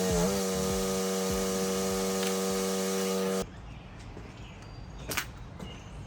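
Pressure washer engine running steadily, its pitch dipping briefly near the start, then cut off abruptly a little over three seconds in. A quieter background with a few sharp clicks follows.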